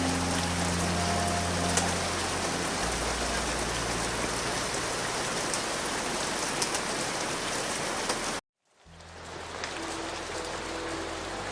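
Steady rain ambience, a dense patter of drops, with soft sustained low music tones beneath it. About eight seconds in, it cuts out abruptly to silence for a moment, then the rain fades back in with new low notes, as at a change of track.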